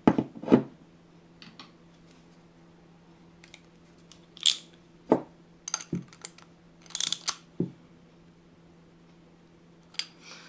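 Small handling clicks, knocks and metallic scrapes as a brass needle-valve seat with a fibre washer is screwed by hand into a Villiers S10 carburettor body and the body is turned over. Two louder knocks at the very start and a sharp scrape partway through stand out over a faint steady hum.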